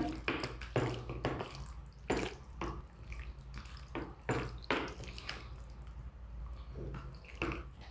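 Wet squelching of bare hands kneading beef chunks in a sticky sauce marinade in a plastic plate, in irregular soft strokes.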